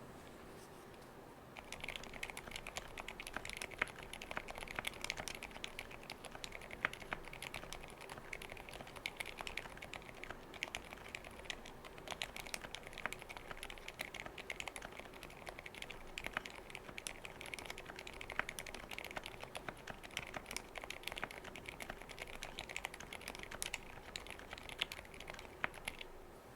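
Continuous typing on an Osume Nemui mechanical keyboard with lubed Sakurio silent switches and lubed stabilizers, on an FR4 plate with O-ring mount: a dense, uneven run of keystrokes with some louder ones. It starts about a second and a half in and stops just before the end.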